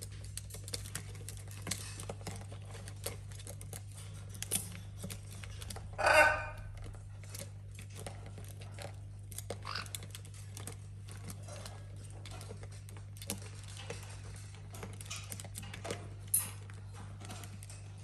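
Parrots' beaks and feet tapping and clicking on a plastic ball-track toy, with one short harsh squawk about six seconds in and a brief high squeak near the end. A steady low hum runs underneath.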